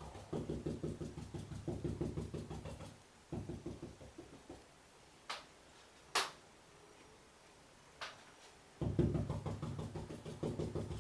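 Paintbrush dabbing paint onto a wall, a quick run of soft taps at about four or five a second. It pauses in the middle, where three sharp clicks are heard, then starts again near the end.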